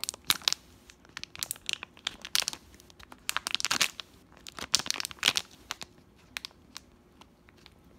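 Vacuum-sealed pouch of a black ink cartridge being opened and crinkled by hand: a run of irregular crackles and rustles that thins to a few sparse ticks over the last couple of seconds.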